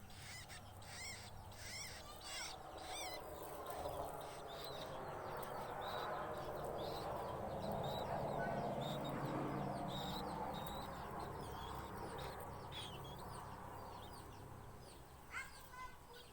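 A fledgling bird giving many short, high chirping calls in quick succession, the begging calls of a young bird still asking to be fed. A louder, broader noise swells up in the middle and fades again.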